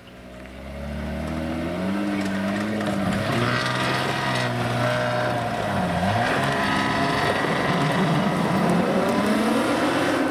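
Off-road Jeep's engine revving hard under load, its pitch rising and falling again and again, with a brief dip about six seconds in.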